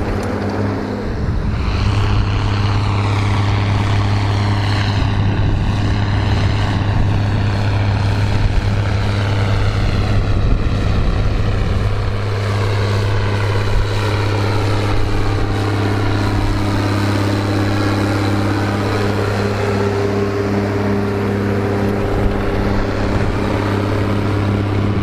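John Deere tractor engine running steadily under load while ploughing, its tone slowly shifting as it moves across the field.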